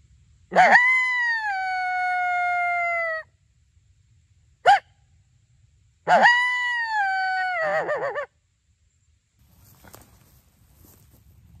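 Hand-blown coyote call imitating coyote howls to draw a coyote in. There are two long, loud howls, each swooping up and then holding before sliding down a step in pitch, with a short yelp between them. The second howl ends in a wavering, breaking warble.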